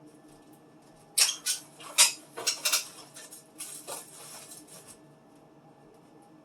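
A burst of clattering: several sharp knocks and clinks of containers and food items being handled and set down in a refrigerator, lasting about three seconds from about one second in.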